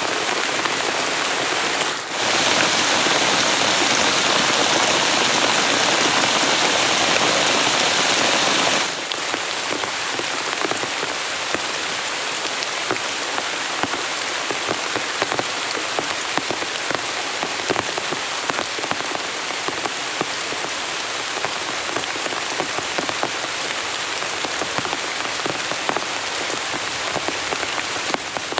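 Heavy rain falling steadily. About two seconds in it turns louder and denser for some seven seconds, then settles into a steady patter with many separate drops striking close by.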